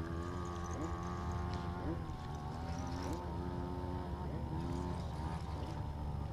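A boat motor running steadily, a constant hum.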